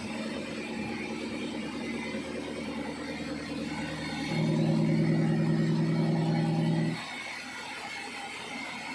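Sawmill machinery running with a steady hum. A louder, deeper motor hum comes in suddenly about four seconds in and cuts off about three seconds later.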